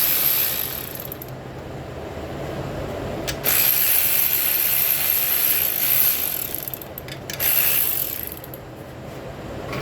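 Ratchet wrench working in bursts: a short one at the start, a longer run of a few seconds in the middle and a short one near the end.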